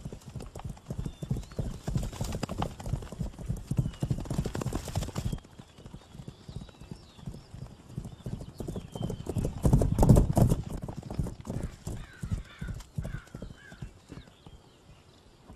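Racehorse galloping on a dirt track, a rapid drumming of hoofbeats. They are loud for the first five seconds, drop away suddenly, then swell to their loudest about ten seconds in and fade out toward the end.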